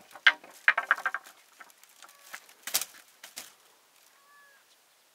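Irregular sharp clicks and knocks, with a quick run of them about a second in and a louder single knock near the middle.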